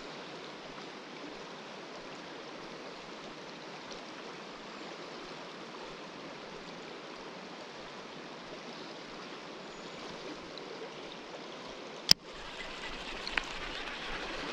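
A river running high and fast, a steady rush of flowing water. About twelve seconds in there is a single sharp click, after which the water sounds brighter and closer.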